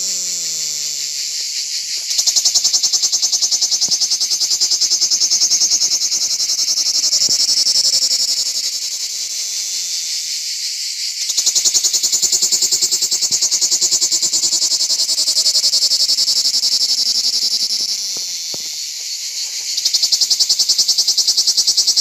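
Cicada (Lyristes plebejus) singing: a loud, continuous, rapidly pulsing buzz that swells and eases in alternating louder and softer phases of several seconds each.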